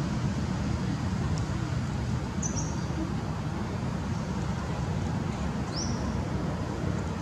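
Steady low outdoor rumble, with two brief high chirps, one about two and a half seconds in and a rising one about six seconds in.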